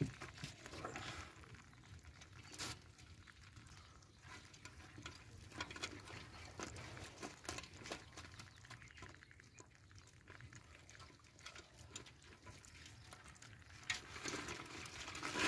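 Faint wet rustling and scattered small clicks of a nylon mesh net bag full of live fish being handled and tied in a plastic tub, with the fish shifting inside. The noise grows louder near the end.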